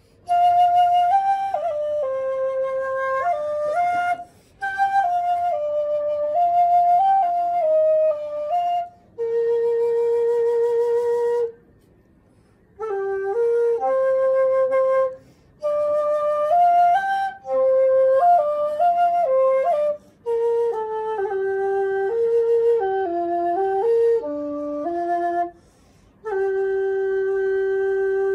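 Xiao, a Chinese end-blown bamboo flute, playing a slow melody in phrases broken by short pauses for breath. It ends on a long, steady low note.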